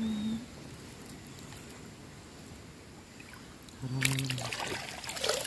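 River water dripping and splashing around a cast net as small fish are handled out of it, with a burst of splashing and crackling about four seconds in.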